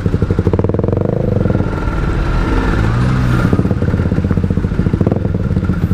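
Two-stroke motorcycle engine with an aftermarket exhaust running at low speed in stop-and-go traffic. The engine speed rises and falls slightly with small throttle changes.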